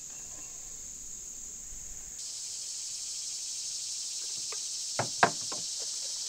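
Steady high-pitched insect chorus, getting louder about two seconds in, with a few sharp knocks near the end.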